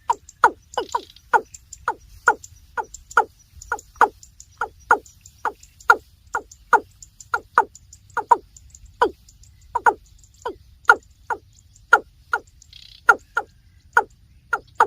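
Water cock calling: a long series of short, evenly repeated call notes, about two a second.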